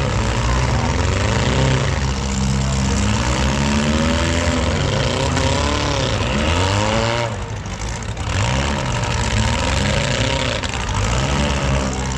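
Several junk cars' engines racing, revving up and easing off over and over, their pitches rising and falling across one another. The sound dips briefly about two-thirds of the way through.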